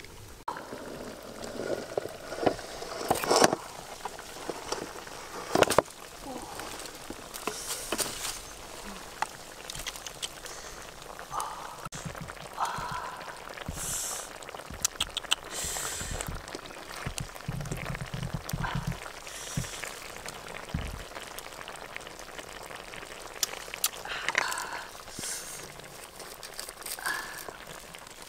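Cooking sounds from a black wok of fish stew over a wood fire: liquid bubbling, with a few sharp metal knocks and scrapes from the lid and ladle against the pan, the loudest a few seconds in.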